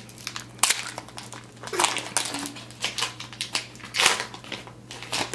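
Foil wrapper of an Upper Deck hockey card pack crinkling and crackling as it is handled and torn open, in a run of sharp crunches.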